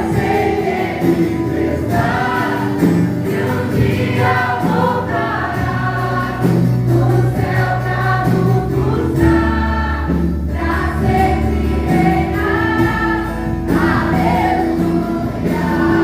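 Worship group singing a Christian praise song over instrumental backing with a steady bass.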